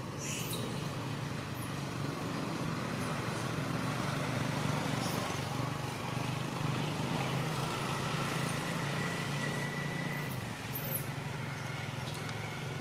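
Steady low engine-like rumble under a wash of outdoor background noise, like road traffic running nearby.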